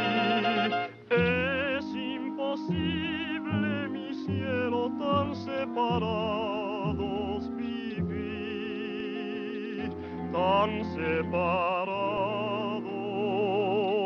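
Orchestral cartoon score: a melody with a strong wavering vibrato over sustained lower notes.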